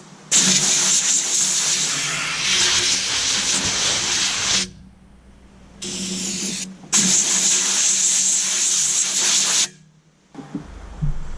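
Compressed-air blow gun blasting chips and cutting oil off drilled steel before welding: a long hissing blast of about four seconds, a short weaker puff, then another blast of about three seconds, each cut off sharply. A steady low hum runs underneath.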